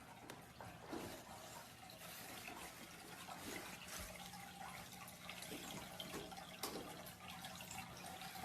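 Faint trickling water with small drips and splashes, over a low steady hum.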